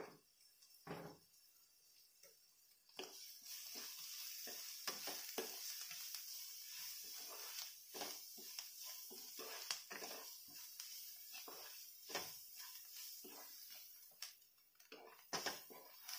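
Spatula stirring vegetables and paneer with spices in a non-stick kadhai, with repeated scraping and tapping against the pan. A frying sizzle starts about three seconds in and fades near the end.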